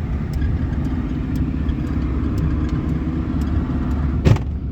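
A 1998 Suzuki Baleno heard from inside the cabin while driving: a steady engine and road rumble, with faint light ticks scattered through it and one sharp knock about four seconds in.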